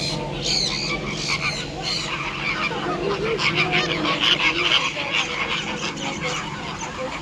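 Many birds calling at once, a dense chorus of overlapping short calls, busiest and loudest about halfway through.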